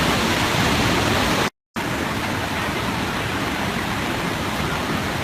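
Floodwater of a swollen river rushing in a steady, loud roar of water noise, broken by a brief total dropout about a second and a half in.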